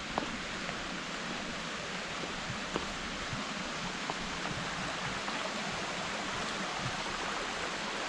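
Steady hiss of rushing water, with a few faint clicks on top.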